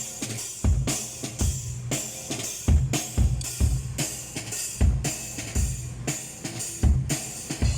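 Live drum kit playing a beat during a band sound check: bass drum hits and snare strokes under a constant wash of cymbals.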